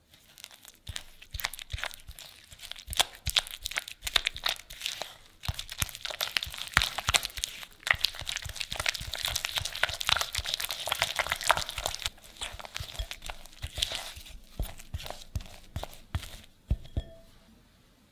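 A spatula stirring and scraping creamed butter and egg in a glass bowl: quick, irregular sticky scrapes and clicks against the glass. The stirring is busiest in the middle and thins out near the end.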